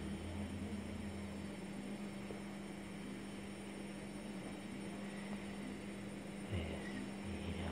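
A steady low electrical-sounding hum with a faint hiss; a deeper part of the hum drops out a little over a second in and comes back near the end.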